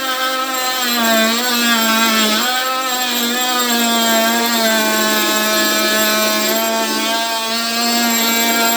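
Ryobi brushed cordless oscillating multi-tool with a wood blade cutting through a 2x4: a steady, loud buzzing whine whose pitch dips briefly a few times in the first few seconds as the blade loads up in the wood.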